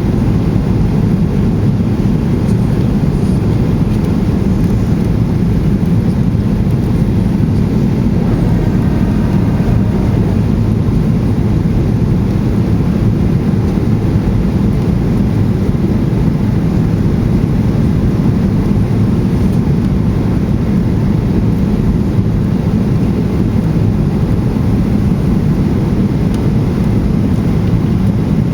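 Steady cabin noise inside a Boeing 737-800 in flight: a constant low roar of its CFM56 engines and rushing air, unchanging throughout.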